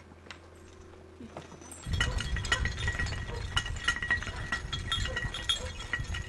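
Many small sheep bells clinking continuously from a flock in a pen, over a low rumble, starting suddenly about two seconds in after a quiet start.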